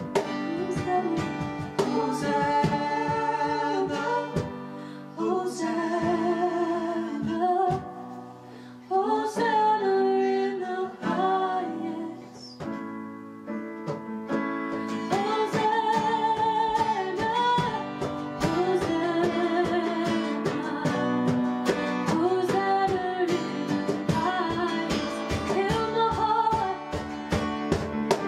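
A worship song: a voice singing a melody over strummed acoustic guitar, with a short quieter passage in the middle.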